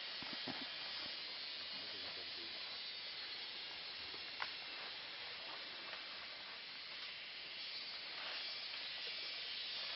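Steady hiss of forest background noise, with a single sharp click about four and a half seconds in.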